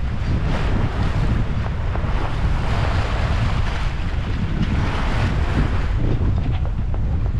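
Wind buffeting the microphone in a heavy low rumble, over the hiss of water rushing past a sailboat's hull as it sails in about 20 knots of wind. The water hiss swells and eases, strongest around three and five seconds in.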